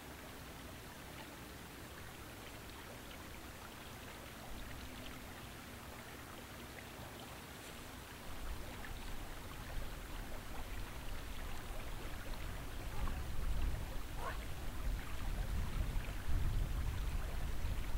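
Creek water flowing steadily, with a low rumble that grows louder from about 8 seconds in.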